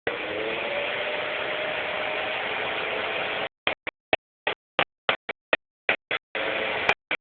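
Maserati engine idling, a steady running sound that the owner calls a rough idle once the engine is at operating temperature. About halfway through, the sound breaks up into a dozen short fragments with dead silence between them.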